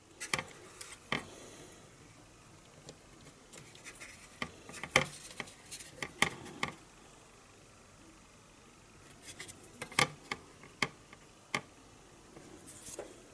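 Scattered small clicks, ticks and light scratches of a clear plastic model-kit part being handled with tweezers and fingertips and pressed into place on the plastic fuselage, coming in a few short spells.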